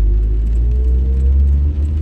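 Low, steady rumble of a car driving on a wet road, heard from inside the cabin, with a faint whine that rises in pitch during the first second or so.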